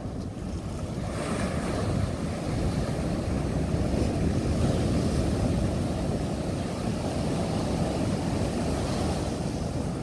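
High surf breaking and washing up the beach: a continuous rushing roar of waves that swells louder about a second in, with wind buffeting the microphone.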